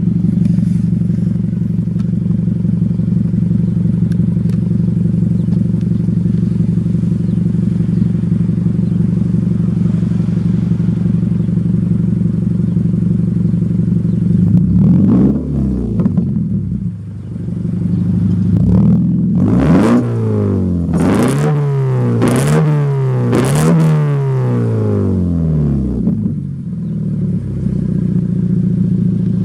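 2014 Scion FR-S flat-four engine idling through its exhaust, then blipped once about halfway in and given about four quick revs near the end before settling back to idle. The mid-pipe to cat-back joint has just been tightened and given a new gasket, curing the exhaust leak and its gasket rattle.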